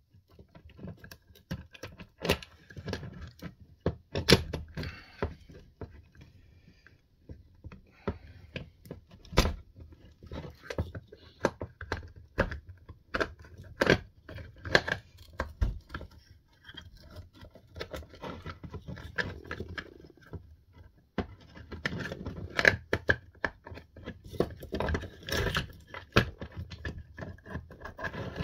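Irregular clicks, taps and scrapes of hand tools and small hard parts being handled and fitted during work on a Spinlock XA rope clutch handle.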